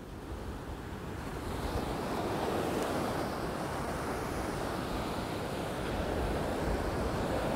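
Surf breaking on the beach, mixed with wind buffeting the microphone; the wash swells over the first couple of seconds and then holds steady.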